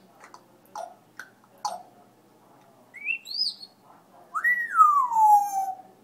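African grey parrot whistling: a few short clicks, then two quick rising whistle notes about three seconds in, and finally a loud whistle that swoops up and glides down in one long fall near the end.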